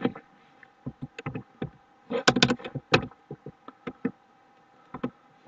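Computer keyboard typing: irregular, separate key clicks in small clusters with short pauses between them.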